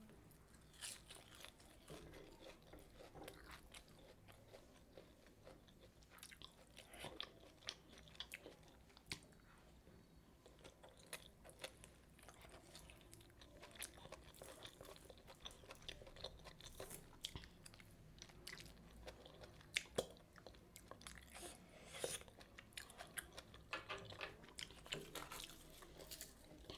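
Close-miked chewing and biting of methi puri with mutton curry: quiet crunches and wet mouth clicks, scattered irregularly throughout.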